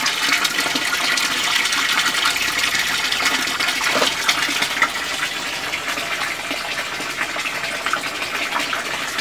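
Steady splashing of a stream of water pouring from a spout into a small garden fish pond.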